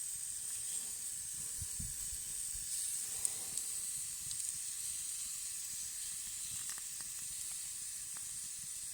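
Pieces of marinated pork sizzling steadily on a fire-heated rock, a high hiss with a few small pops and crackles.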